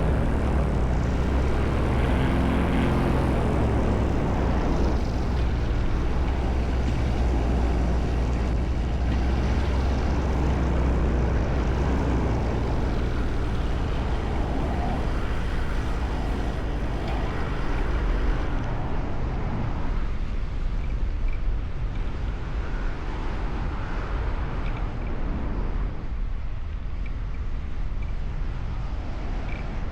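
Paramotor engine and propeller running steadily with wind noise, a deep low drone throughout. About two-thirds of the way through the drone drops to a lower pitch.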